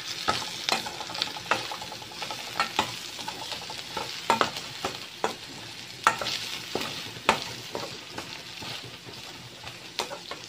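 Chopped onions sizzling in hot oil in a stainless steel kadai as a spatula stirs them. The spatula scrapes and taps against the steel pan in irregular clicks over a steady frying hiss.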